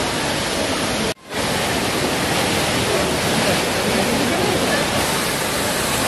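Waterfall's steady rush of water pouring over rock, loud and even throughout, with a brief sudden drop-out about a second in.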